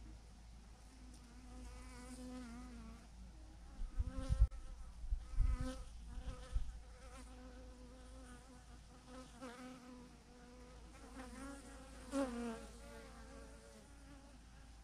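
Honeybee swarm buzzing: a steady hum with individual bees passing close, their pitch sliding up and down. A few loud low thumps come between about four and six and a half seconds in.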